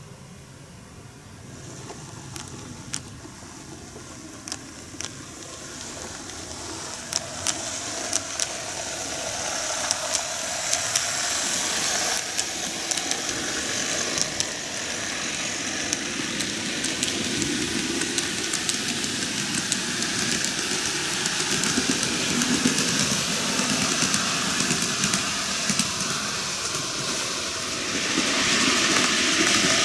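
N-gauge model electric trains running on plastic-based canted track: a steady running hum and hiss with many sharp clicks from the wheels crossing the rail joints. It starts faint, grows louder as the trains gather speed and pass close, and steps up again near the end as a train approaches.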